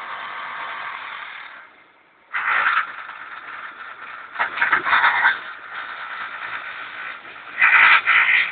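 Wheel repair machine working on a wheel rim, making a steady scraping noise that stops a little under two seconds in, followed by three louder scraping passes.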